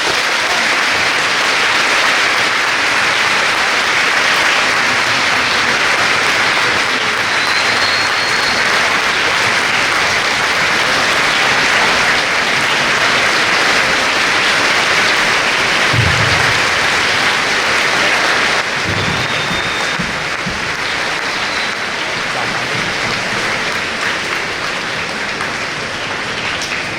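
Large audience applauding steadily at the end of a speech. The clapping eases off slightly a little past the middle.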